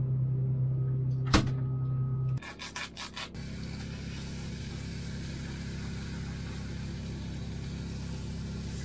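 Steady hum of a boat cabin's air conditioner, with a sharp click about a second and a half in and a few quick clicks just after, then a quieter, even hiss of air to the end.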